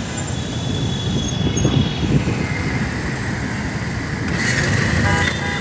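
Road traffic with vehicle engines running at close range, and a high steady tone coming in about four seconds in.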